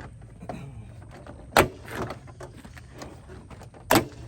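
Plastic retaining clips of a 2004 Jeep Liberty's tailgate interior trim panel snapping loose as the panel is pried off, with two sharp loud snaps about two and a half seconds apart and lighter clicks and rattling of the panel between them. It sounds like the panel is breaking, but it is not.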